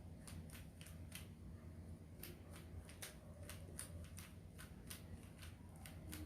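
Rubik's cube layers being turned in quick succession: a run of faint plastic clicks, several a second, over a low steady hum.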